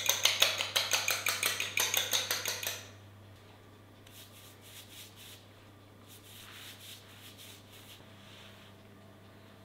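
A metal utensil clinking rapidly against a dish, about five strokes a second, stopping about three seconds in. Fainter clinks and scraping follow.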